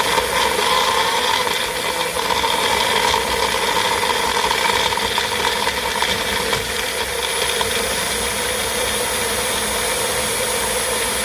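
Countertop blender running steadily at one constant speed, its motor holding an even pitch.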